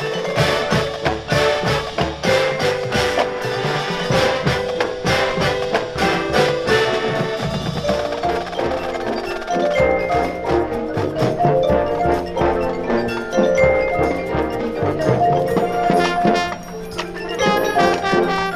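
Marching band playing a field show, with mallet percussion prominent: a dense run of struck notes and drum hits, giving way about halfway to held chords.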